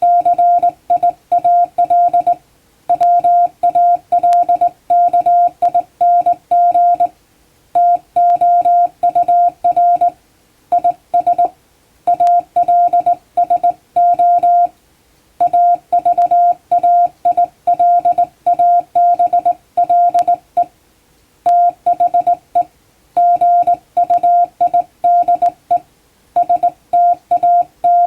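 Hand-keyed Morse code (CW): a single steady beep switched on and off in dots and dashes, grouped into letters and words with short pauses between. It spells out plain-language English text for receiving practice.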